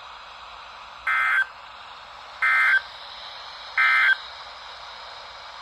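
EAS end-of-message (SAME) data tones from a weather radio broadcast: three short buzzy bursts about 1.4 seconds apart, marking the end of the alert message, over steady radio hiss.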